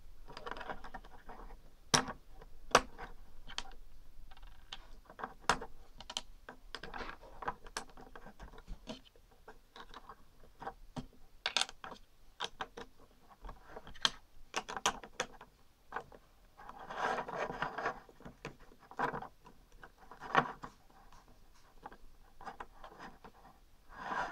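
LEGO bricks being handled and pressed together: scattered sharp plastic clicks and rubbing, with a denser stretch of rustling a little past halfway.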